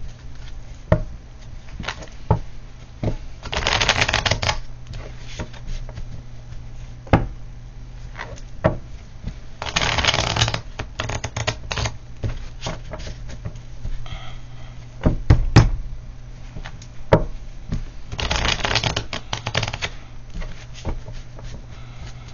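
A tarot deck being shuffled in three bursts of rapid card clicks, about four, ten and nineteen seconds in, with scattered single card taps and clicks between.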